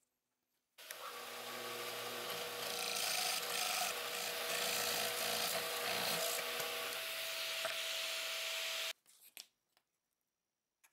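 Drill press boring into a hardwood block with a large Forstner bit: a steady motor whine under the noise of the bit cutting and throwing chips. It starts about a second in and cuts off sharply near the end, followed by a few light knocks.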